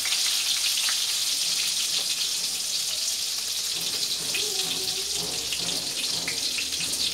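Chicken nuggets deep-frying in oil in a wok, a steady sizzle, with a few light clicks of metal tongs against the pan as the pieces are turned and lifted out.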